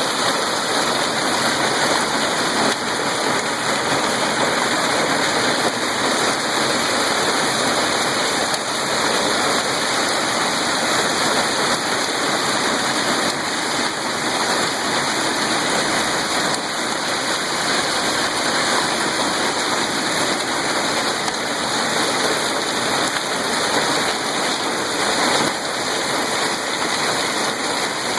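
Heavy storm rain pouring down steadily, an even dense hiss.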